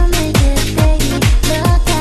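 Electronic dance-pop music with a steady kick-drum beat, about two strokes a second, and a synth melody; no singing in this stretch.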